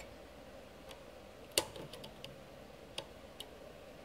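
A few small plastic clicks as a short data cable's connector is handled and pushed into its socket on an ASICMiner Tube board, the sharpest about one and a half seconds in and a softer one about three seconds in.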